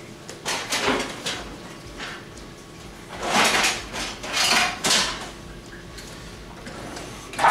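Dishes and kitchenware clattering in a few short bursts of handling, with quieter stretches between.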